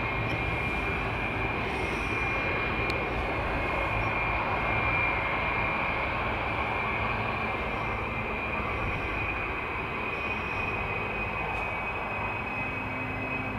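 Airbus A320's IAE V2500 turbofan engines running at low taxi power: a steady high whine over a broad, even rush of engine noise.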